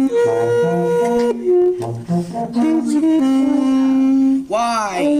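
A saxophone and a euphonium play a simple tune together in held notes that change step by step. Near the end one note bends sharply in pitch.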